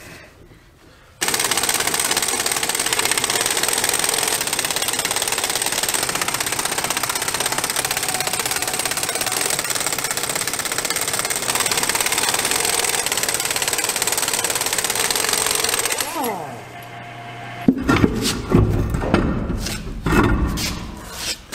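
Air impact wrench hammering continuously for about fifteen seconds on the lug nuts of a truck's dual rear wheel, winding down with a falling whine. Then several heavy knocks and clunks near the end as the steel wheel is handled.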